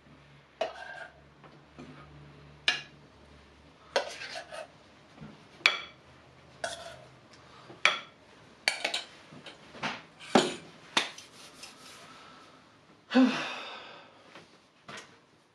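A metal utensil clinking and scraping against a stainless steel mixing bowl, as food is spooned out of it. There are about a dozen separate sharp clinks and a longer scrape near the end.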